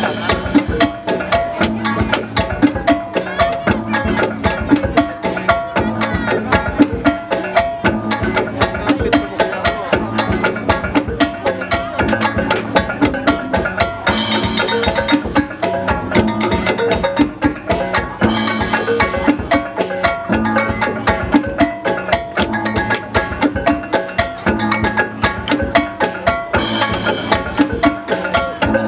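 Traditional Dayak dance music played on percussion: a fast, steady knocking beat under repeating pitched notes from struck instruments.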